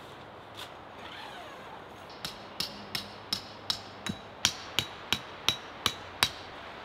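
A hammer driving a tent stake into the ground: about a dozen evenly paced strikes, roughly three a second, starting about two seconds in, the later ones with a metallic ring.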